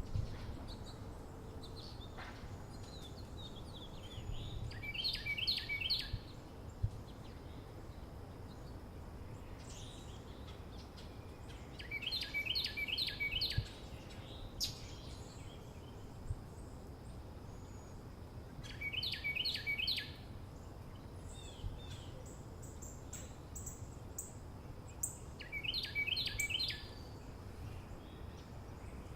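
Early-morning suburban ambience: a songbird repeats a short phrase of rapid notes four times, about seven seconds apart, while other birds chirp faintly, over a steady low background rumble.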